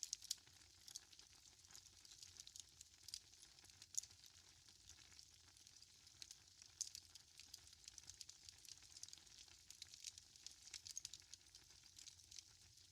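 Wood fire burning in a fireplace, crackling faintly with a steady scatter of small pops and a few louder snaps, one right at the start, one about four seconds in and one near seven seconds in.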